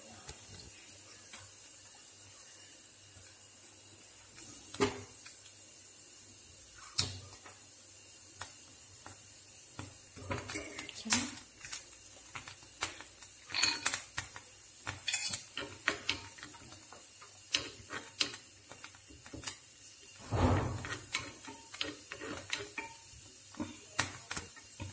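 Scattered clinks and knocks of a metal spoon and a small pan on the stove as cashews and raisins are tipped into melted ghee and stirred, busier in the second half, with one heavier thump about twenty seconds in.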